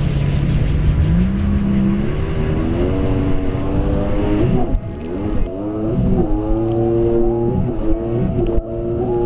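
Yamaha jet ski engine running at speed, its pitch rising and falling with the throttle and twice dipping briefly before climbing again, over the hiss of water spray and wind.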